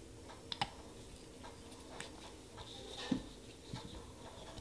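A few faint, scattered clicks and taps from small nail-stamping tools being handled, over quiet room tone.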